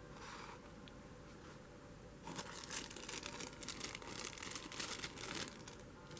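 Crinkling and rustling handling noise in quick irregular bursts, starting about two seconds in after a quieter stretch.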